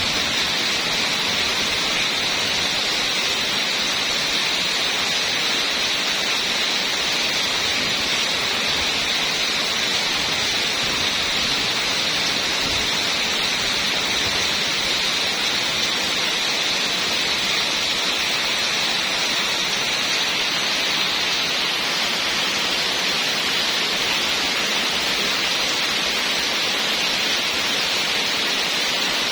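Heavy rain pouring steadily, an even hiss with no single drops, thunder or gusts standing out.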